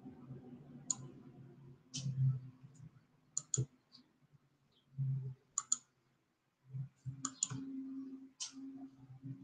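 Computer mouse clicking: about ten short, sharp clicks scattered irregularly, some in quick pairs, over a faint low hum that comes and goes.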